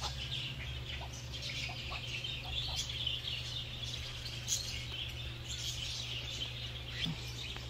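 A background chorus of small birds chirping, with a few faint short lower calls here and there and a steady low hum underneath.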